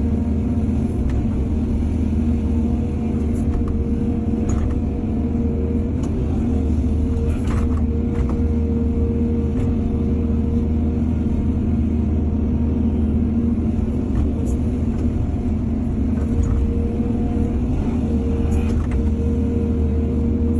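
Heavy diesel excavator engine running steadily under load, with a constant low drone and a steady whine above it. A few faint knocks come through now and then.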